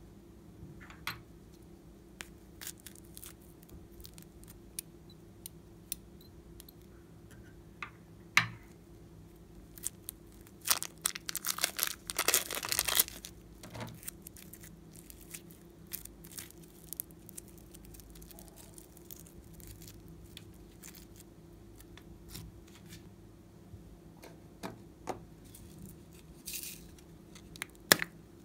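Foam-bead slime being squeezed out of a plastic piping bag: scattered small clicks and crackles, with a dense crinkling, crackling burst lasting a couple of seconds near the middle.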